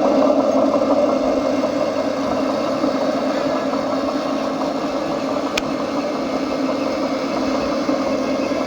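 Radio-controlled scale construction machine running with a steady engine-like drone, with one sharp click about five and a half seconds in.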